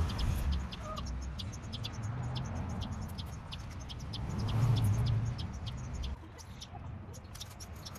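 Low rumble of a passing road vehicle, swelling about halfway through and fading near the end, with many scattered short high clicks over it.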